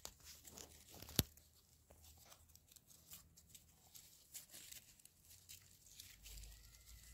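Dry maize husks rustling and crackling faintly as fingers twist and braid the strips, with one sharp click a little over a second in.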